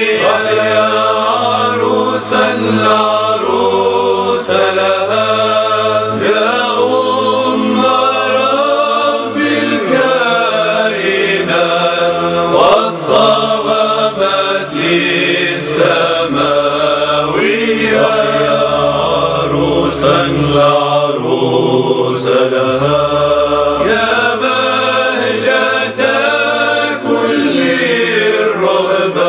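Byzantine chant at Orthodox Vespers: voices sing a winding melody over a low held drone, the ison, which shifts to a new pitch a few times.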